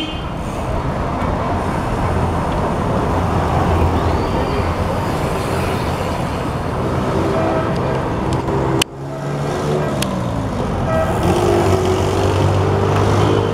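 Street traffic: motor vehicle engines running and passing over a steady road noise, one falling in pitch as it goes by. About nine seconds in there is a sharp click with a brief dip in the sound.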